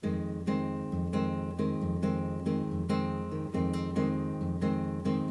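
Nylon-string classical guitar playing plucked chords, about two a second, starting abruptly.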